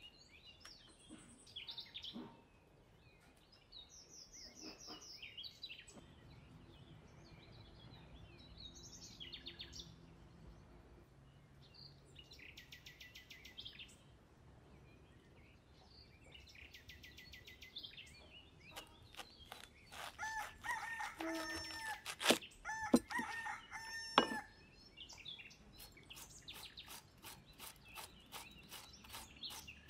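A rooster crowing about twenty seconds in, over small birds chirping, with a few sharp knocks. Near the end, a quick run of scraping strokes as a cabbage is shredded with a hand-held shredder.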